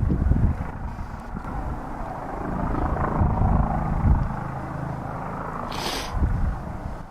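Helicopter running, with uneven rumbling and wind buffeting the microphone and a brief hiss about six seconds in.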